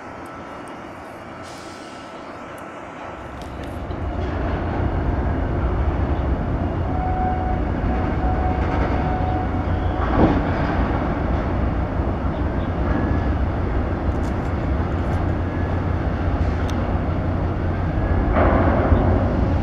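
A steady low rumble that sets in a few seconds in and holds, with faint short high-pitched calls over it.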